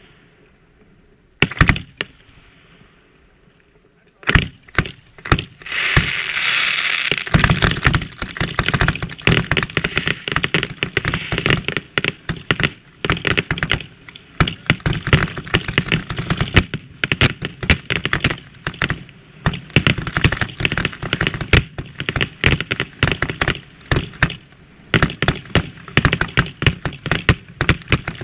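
Aerial fireworks at close range: a few separate sharp bangs, then from about four seconds in a dense, continuous barrage of crackling bursts and reports, with a hiss around six seconds in.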